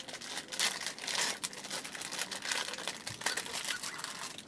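Plastic wrapper of a squab-feeding syringe being torn open and crinkled by hand: a run of irregular crackles and rustles.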